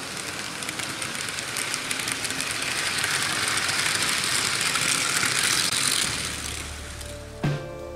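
Märklin H0 model train coaches rolling past on metal M-track, a steady rushing rolling noise with faint clicking that builds, then fades about six seconds in as the last coach goes by. Music starts near the end.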